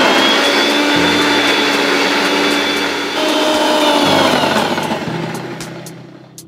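Usha Colt mixer grinder running at full speed, grinding onion, garlic and green chillies into a paste. About four seconds in it is switched off and winds down, its whine falling and fading.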